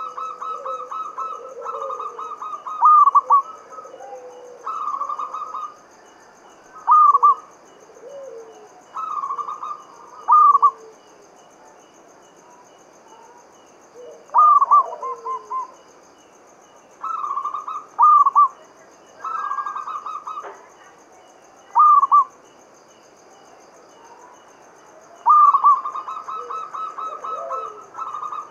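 Zebra dove (perkutut) cooing: repeated phrases of quick stuttering notes, each ending in one or two louder drawn-out coos, every few seconds with short pauses between.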